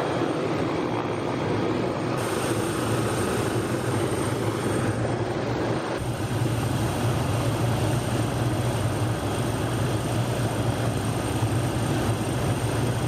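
Helicopter turbine and rotor running steadily, heard from inside the cabin with the doors off, with a constant roar of rotor and air noise.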